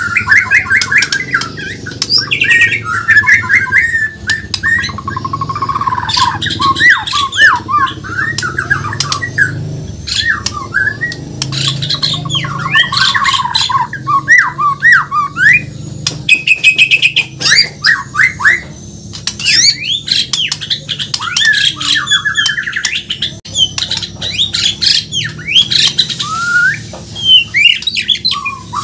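A Bornean white-rumped shama (murai batu) singing a continuous, varied song of fast trills, quick whistled sweeps and sharp chattering notes.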